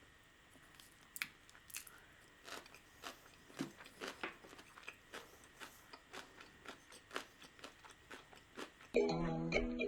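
Close-up mouth sounds of eating: chewing with wet smacks and small clicks, irregular and faint, as a spoonful of spicy fire carbonara risotto is eaten. About a second before the end, ukulele background music starts suddenly.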